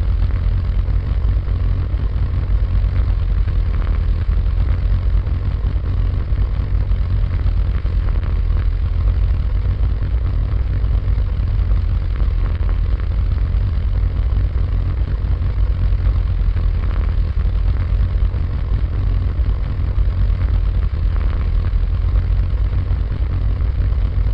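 A big old engine running steadily at an even speed, deep and low-pitched, with no revving or change in pace.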